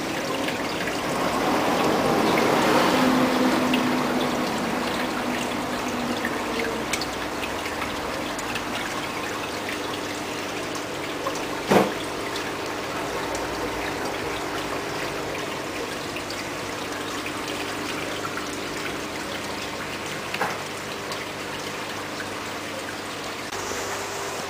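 Water trickling and splashing from aquarium filter returns and pumps into the shop's tanks, over a steady low hum, swelling a little in the first few seconds. A sharp knock about twelve seconds in and a fainter one later.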